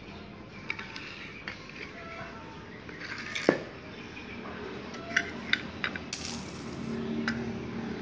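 Small rings clinking as a trained lovebird drops them into a container: a few separate sharp clinks, a louder one about three and a half seconds in, and a short, louder clatter just after six seconds.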